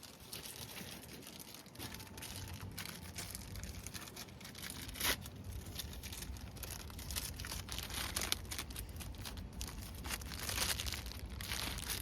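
Crinkling and rustling handling noise with many small irregular clicks, over a low rumble.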